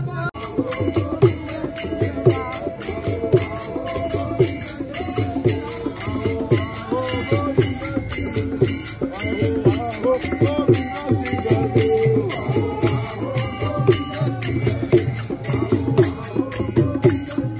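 Small brass hand cymbals clashing in a quick, steady rhythm together with a two-headed barrel drum beaten by hand.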